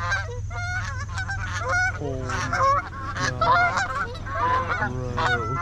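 A flock of Canada geese honking close by, many short calls overlapping, thickest in the second half as the birds come in to land.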